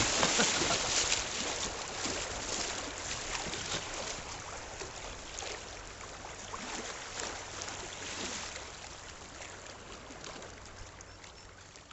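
River water rushing and splashing around a kayak, with frequent small splashes, gradually fading away.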